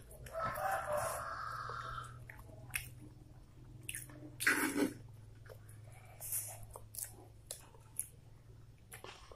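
Eating sounds: a metal fork clicking and scraping on a plastic plate, and noodles being chewed. A rooster crows once in the background for under two seconds, starting about half a second in.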